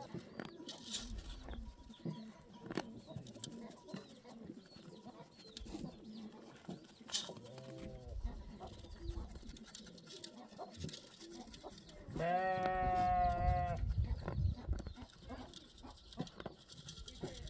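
Livestock bleating: a short, faint call about eight seconds in, then one long, wavering bleat about twelve seconds in, among scattered small knocks.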